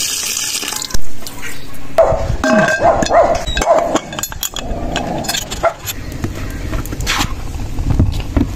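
Water poured into an aluminium pressure cooker full of meat, then a sharp metal clank about a second in, followed by a few seconds of wavering, voice-like calls.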